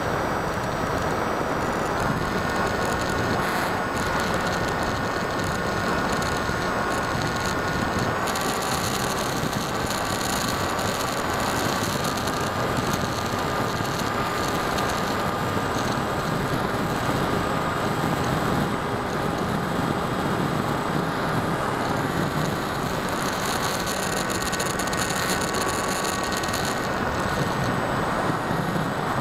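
Electric motor and propeller of a small foam RC plane running in flight, heard from its onboard camera along with the rush of air. A steady hum with a thin whine whose pitch shifts a little now and then as the throttle changes.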